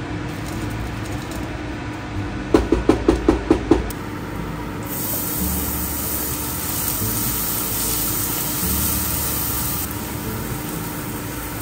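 Chopped aromatics (minced garlic, then green onion) sizzling in hot olive oil in a pot on an induction hob, the sizzle starting about five seconds in as they are scraped off the board into the pot. Before it, a quick run of about seven short taps.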